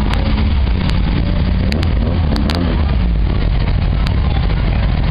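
Low engine rumble of a 1940s Ford convertible cruising slowly past at walking pace.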